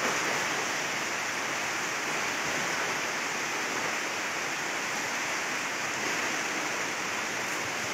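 Steady, even rushing noise of water, with no distinct strokes or splashes.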